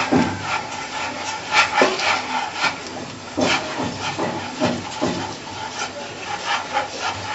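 Palms rubbing and rolling dampened couscous semolina across a tray, a grainy rasping scrape with each stroke, as the semolina is worked into berkoukes pellets. The strokes come irregularly, a few every second.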